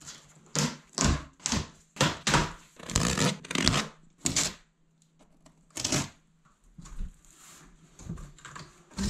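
Knife slicing through packing tape on a cardboard box: about nine short rasping strokes in the first five seconds. Quieter rustling and knocks of cardboard being handled follow as the box lid is opened.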